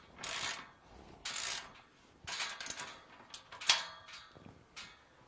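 Ratchet wrench tightening a gate hinge nut: three short strokes of rapid ratchet clicking about a second apart, then a few metallic clicks with one sharp, loud clink just past halfway.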